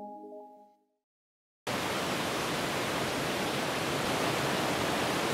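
Last chiming notes of an intro jingle fade out within the first second; after a short silence the steady rush of a mountain creek starts abruptly and continues.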